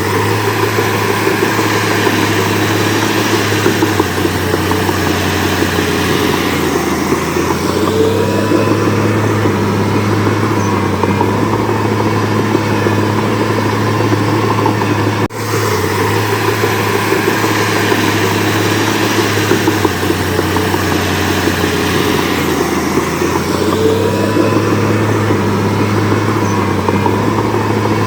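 Heavy diesel machinery engine running steadily, with a brief dropout about halfway through.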